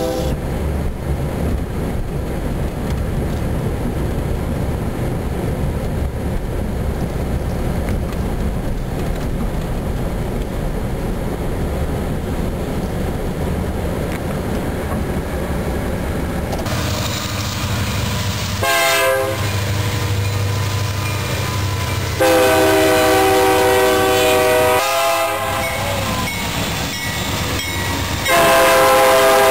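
A low, muffled rumble inside a car for the first half. Then a BNSF freight train led by a GE Dash 9 locomotive rolls past close by, sounding its multi-chime air horn: a short blast, a long blast, a brief blast, and another long blast that carries on to the end.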